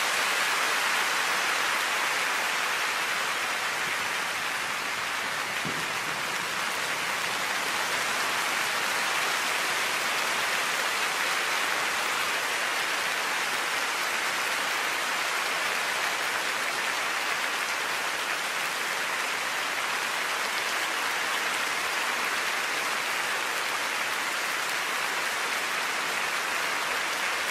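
Large arena audience applauding, a dense steady clapping that holds at the same level throughout.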